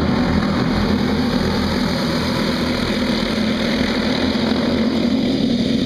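A pack of small racing go-kart engines running together at speed, a steady, unbroken engine noise.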